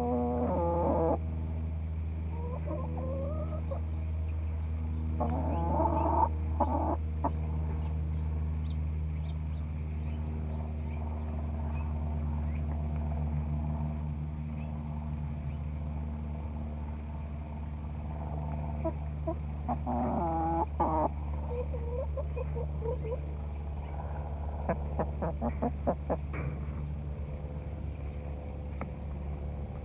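Domestic hens clucking and calling in short bouts, with a quick run of clucks late on, over a steady low hum.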